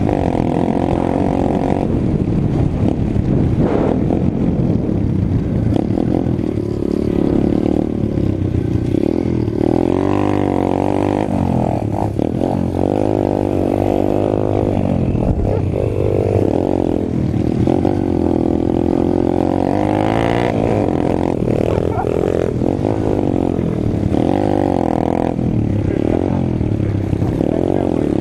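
Apollo RFZ pit bike's single-cylinder four-stroke engine running under way, revs rising and falling again and again as the throttle is opened and closed.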